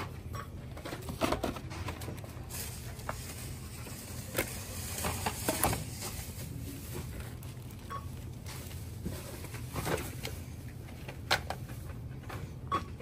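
Handling noises at a store checkout counter: scattered knocks, clicks and rustles of items being picked up and set down, over a steady low hum.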